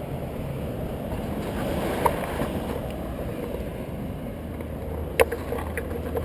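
Steady outdoor background noise of wind on the microphone and traffic rumble, with two short clicks, about two seconds in and about five seconds in. A low steady hum comes in after about four and a half seconds.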